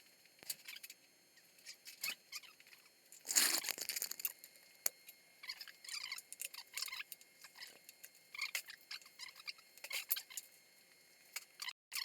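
Light clicks, taps and scrapes of small metal engine parts being handled and picked at, with a longer, louder scrape about three seconds in.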